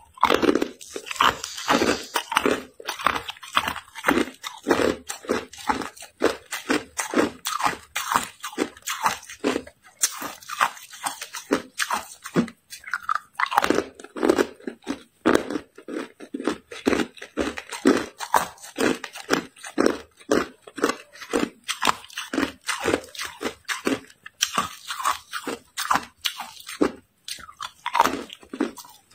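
Hard, clear ice cubes crunched between the teeth and chewed, a continuous run of sharp crunches about two to three a second.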